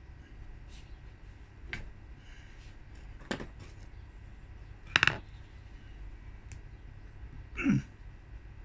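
A few sharp clicks and knocks as a metal brake piston with its rubber dust boot is handled and pressed into the bore of a Mazda Bongo twin-piston brake caliper, the loudest about five seconds in. A short, lower sound follows near the end.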